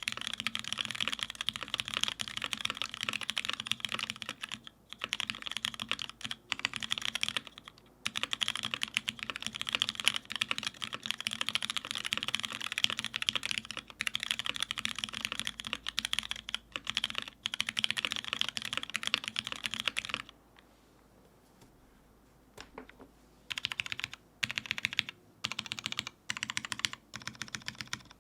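Mechanical keyboard typed on quickly and continuously: a perry.works IU TKL with lubed Cherry MX Black linear switches on an aluminium full plate and GMK keycaps. About twenty seconds in the typing stops briefly, then resumes in short separate bursts of keystrokes.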